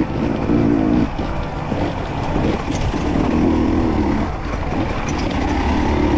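Two-stroke dirt bike engine running under the rider on rocky singletrack, easing off the throttle about a second in and pulling again about three seconds in.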